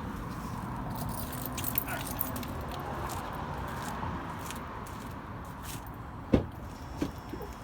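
Keys jangling and small handling clicks, then a sharp thump a little over six seconds in and a smaller one about a second later.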